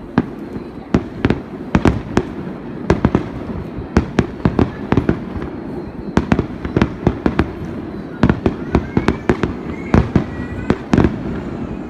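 Fireworks exploding in a rapid, continuous barrage of sharp bangs, many in quick clusters, over a low rumble, with faint rising whistles near the end.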